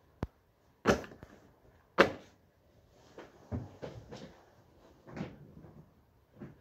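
Handling knocks at a wooden table: a sharp click, two heavier thumps about a second apart, then a run of softer knocks and rustles as a pair of work gloves is laid down on the tabletop.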